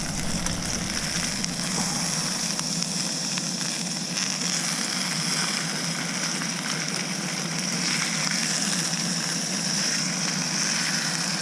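Food frying in a pan, a steady sizzling hiss.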